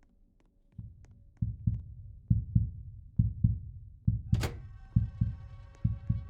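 Heartbeat sound effect: low double thumps (lub-dub) repeating a little faster than one pair a second, beginning after a second of near quiet. About four seconds in a short sharp hit sounds and a steady held tone comes in under the beats.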